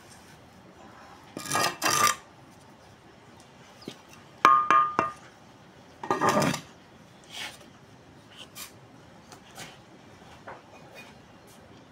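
Steel mason's trowel scraping and scooping wet mortar in a couple of rough strokes, with a sharp, ringing metal clink about four and a half seconds in and a few light taps near the end.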